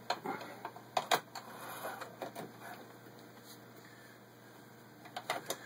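A few light clicks and knocks with a soft rustle as the denim is handled and repositioned at the presser foot of a Singer 353 Genie sewing machine. The machine is not running.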